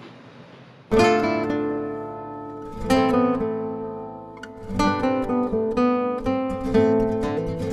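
Outro music of strummed acoustic guitar chords, starting suddenly about a second in after faint room tone, each chord ringing out and fading before the next is struck.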